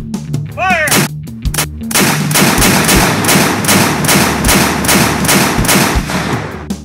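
Cannon-fire sound effect: a rapid volley of shots, about three a second, starting about two seconds in and fading near the end. It plays over rock music with guitar, and a short wavering whistle sounds a little under a second in.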